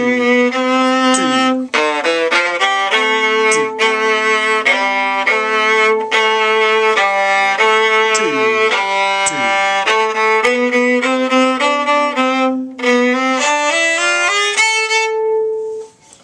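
Viola playing a quick melodic passage, often with two notes sounding together, ending on a held note that stops shortly before the end.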